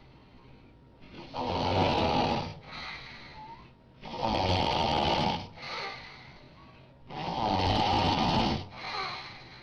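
Loud snoring: three long snores about three seconds apart, each followed by a shorter, softer breath.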